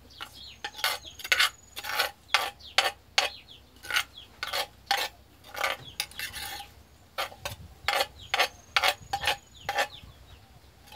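A metal spoon scraping and knocking inside a clay mortar, about two strokes a second, as the pounded food is scooped out onto a plate.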